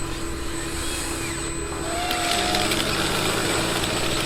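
Small electric motors and gears of radio-controlled construction models whirring over a steady low hum, growing denser and a little louder about halfway through.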